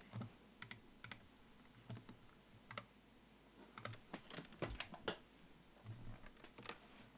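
Faint, irregular keystrokes on a computer keyboard, a scatter of separate clicks that come more closely together about four seconds in.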